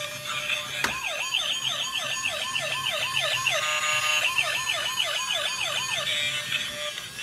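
Battery-powered bump-and-go toy police car's electronic siren: a fast rising-and-falling wail of about three swoops a second. It starts with a click about a second in, briefly holds one steady note midway, and stops about six seconds in.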